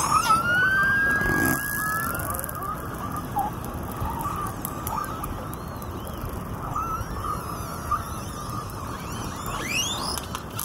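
Field-recording sound composition playing back: high whistling calls that slide up and down in pitch over a steady low rushing noise. A long rising whistle comes in the first two seconds, scattered short chirps follow, and a cluster of steep upward-sweeping whistles comes near the end.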